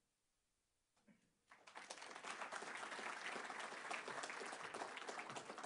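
Audience applauding. It starts after about a second and a half of near silence.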